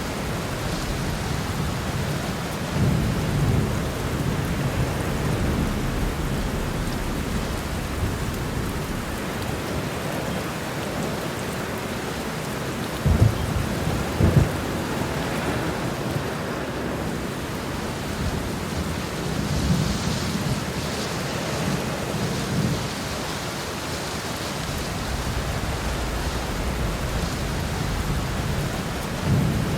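Heavy rain pouring steadily, with thunder rumbling low several times and two sharp thunder claps about a second apart midway.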